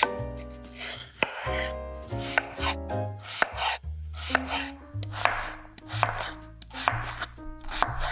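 Chef's knife chopping a cucumber into chunks on a bamboo cutting board: crisp cuts, each ending in a knock of the blade on the wood, about two a second. Soft background music plays underneath.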